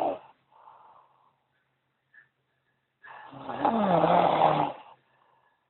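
A man snoring in his sleep: the end of one snore at the start, a faint breath, a pause of about two seconds, then a long loud snore from about three seconds in, dropping in pitch partway through and stopping near five seconds.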